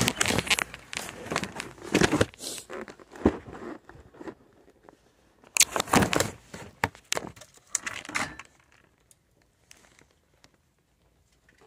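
Rustling and crinkling handling noise in irregular bursts, from the phone being moved about against hands and clothing. It dies away to near silence about three seconds before the end.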